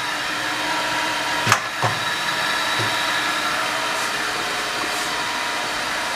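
Jones & Shipman 540H surface grinder's wheel spindle running with a steady hum and whine. A sharp click comes about one and a half seconds in, with a couple of soft knocks after it.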